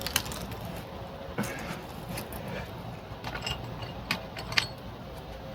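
Scattered light metallic clinks and taps from bicycle headset parts and tools being handled during reassembly, a few of them ringing briefly, over a steady low background hum.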